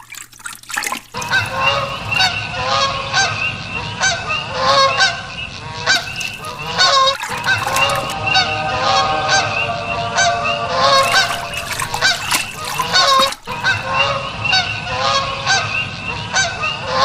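A flock of birds honking, many short calls overlapping without a break, interrupted twice for an instant about seven and thirteen seconds in.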